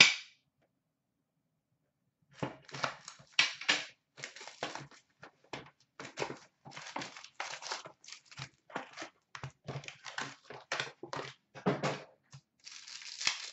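A sealed hockey card box being cut and torn open and its packs pulled out: irregular crinkling and tearing of plastic wrap and paper, starting about two seconds in.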